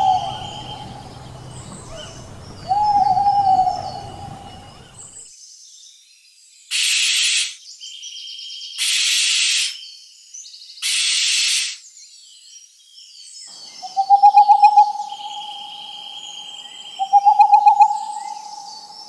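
Owl calls: two short hoots in the first few seconds, then three harsh, hissing screeches about two seconds apart, then two long quavering, trilled hoots near the end. A thin, steady high tone runs faintly under the hoots.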